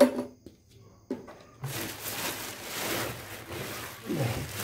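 Clear plastic packaging crinkling and rustling as a knapsack power sprayer is handled in its wrapping. There is a hard plastic knock at the start and another about a second in.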